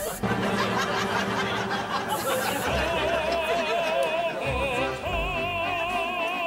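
Background music with an operatic singing voice; a high voice with wide vibrato comes in about halfway through and holds long notes over the accompaniment.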